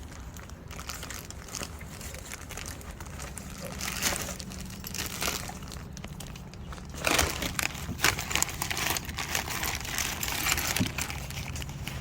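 Packaging being handled while items are pulled from the box: irregular crinkling and crackling of plastic wrap and paper, which gets louder and busier about seven seconds in.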